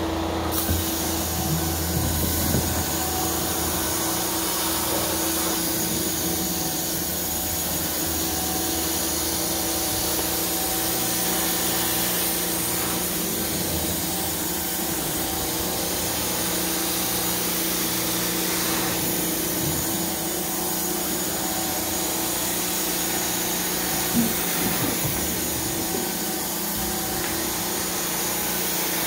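Hot-water carpet extraction wand being drawn across carpet, the extractor's vacuum running steadily with a hiss of suction through the wand head. Its tone shifts a little now and then, and there is a brief knock near the end.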